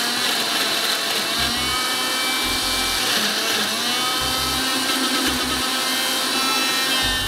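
Countertop blender motor running steadily, pureeing boiled apples with water and spices into a thick sauce; a constant whir with a faint motor whine that drifts up and down in pitch.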